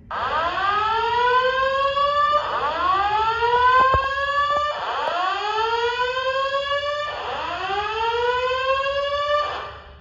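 Simplex voice evacuation speakers sounding the whoop tone that comes before the spoken evacuation message: four loud rising sweeps, each about two and a half seconds long, stopping just before the end.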